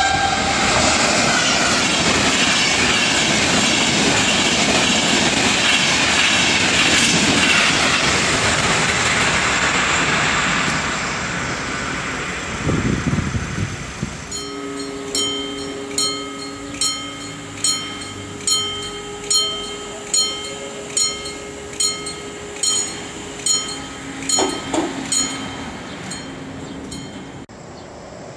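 A passenger train passes through a level crossing at speed, a loud rushing rumble of wheels on rails that fades out over about twelve seconds. Then the crossing's warning bell rings steadily, about one ding a second, while the barriers are still down.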